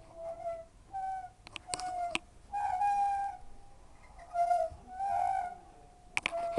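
Hoover W 420 washing machine's drum bearings squealing: a series of short high squeaks about once a second, with a few sharp clicks between them. The bearings are broken.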